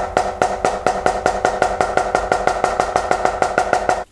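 Drumstick striking a drum head in an even run of fast single strokes, about six a second, played by one hand in traditional grip with the stick rebounding off the head; the drum rings at a steady pitch under the strokes, which stop abruptly near the end.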